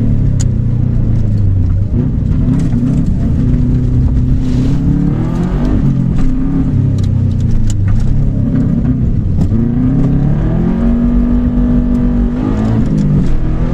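Subaru Impreza rally car's 293-horsepower turbocharged flat-four boxer engine under hard acceleration, revs climbing and dropping back several times through gear changes, with sharp cracks scattered throughout.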